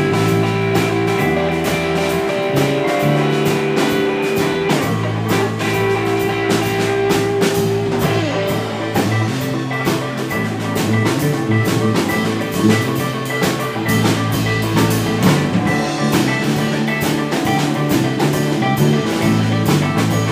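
Live psychedelic blues-rock jam on electric guitar, electric bass and drum kit. Long held low notes sit under a steady run of drum and cymbal hits.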